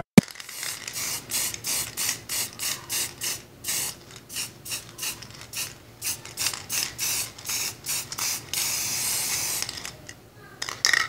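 Aerosol can of silver spray paint hissing in short, quick bursts, about two or three a second, then one longer continuous spray near the end.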